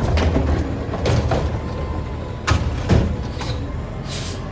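Automated side-loader garbage truck's engine running while its arm lowers the emptied yard-waste cart to the curb, with four sharp knocks and bangs of the cart, lid and arm. A short hiss comes near the end.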